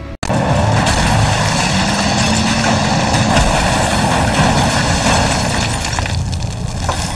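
Film sound of a car rolling over in the dirt: a loud, continuous rush of vehicle noise that cuts in abruptly just after the start, with an engine note rising and then falling in the middle.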